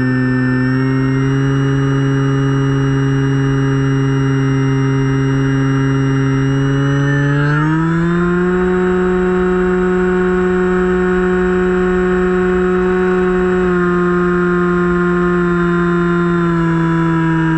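Finwing Penguin RC plane's electric motor and propeller, heard from the onboard camera, running at a steady pitched hum. The pitch steps up about halfway through as the throttle is opened, then eases down slightly twice near the end. A low wind rumble on the microphone sits underneath.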